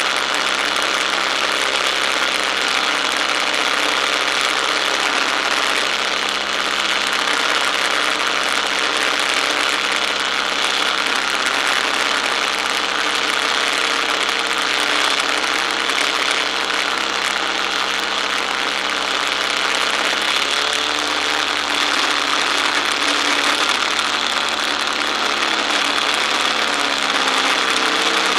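Boeing-Stearman Model 75 biplane's radial engine running in flight under heavy wind rush over the wing-mounted microphone. The engine note shifts in pitch about twenty seconds in and again near the end as the power changes during the manoeuvres.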